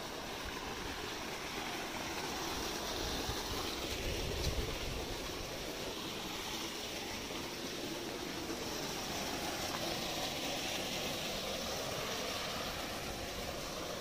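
Small waterfall pouring into a pond: a steady rush of splashing water, with a low rumble underneath.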